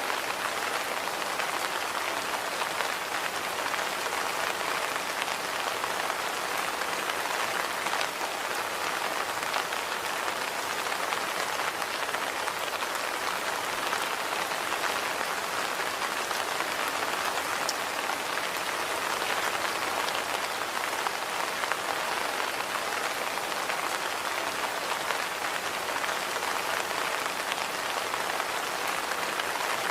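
Steady rain falling on a surface, an even dense patter with scattered individual drop ticks.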